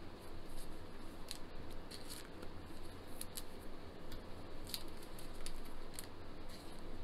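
Thin plastic card sleeves rustling and crinkling under nitrile-gloved hands as a trading card is handled and slid into a sleeve, with scattered small ticks.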